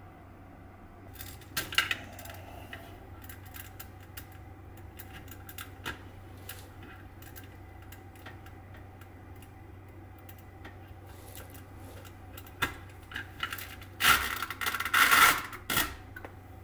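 Cables and plugs being handled: scattered light clicks and rustles, with a sharper cluster of knocks about two seconds in. Near the end comes a loud rip lasting about a second and a half as a velcro strip is pulled apart.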